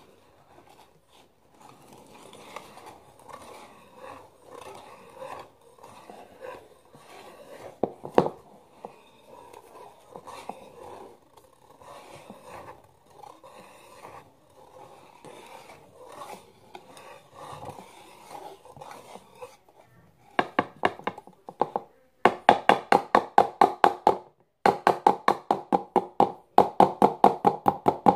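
Wire whisk stirring pancake batter in a mixing bowl, a soft scraping swish at first with a single sharp knock about eight seconds in. From about twenty seconds in it beats fast, the wires striking the bowl in rapid, regular strokes.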